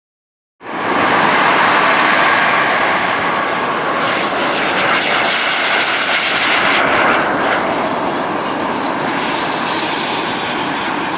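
Turbine engine of an RC model jet running at high power: a loud, steady rushing jet roar that cuts in abruptly about half a second in. It turns brighter and hissier from about four to seven seconds in.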